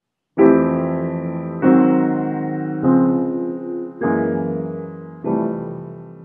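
Intro music: five slow piano chords, each struck and left to fade, about a second and a quarter apart. The last one is still ringing out at the end.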